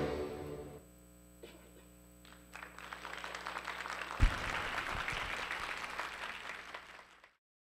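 The dance music fades out, and after a brief lull an audience applauds, with a single low thump about four seconds in. The sound cuts off suddenly near the end.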